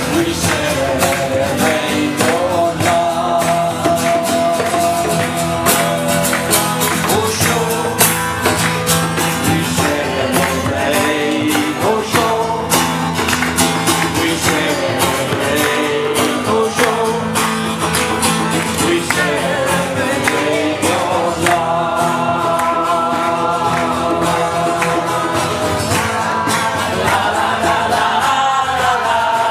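Music with singing, over an accompaniment of guitar and percussion with a steady beat.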